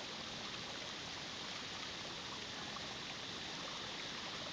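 Water of a small waterfall and its rock pool running steadily, a soft even rush with no breaks.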